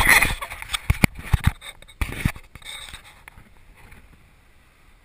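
Rustling and scraping with a few sharp knocks on the camera housing, the handling noise of an action camera being held and moved; it dies away after about two and a half seconds.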